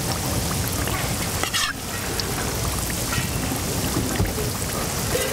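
Hotteok frying in shallow oil on a griddle, sizzling steadily as a round stainless-steel press holds a pancake flat.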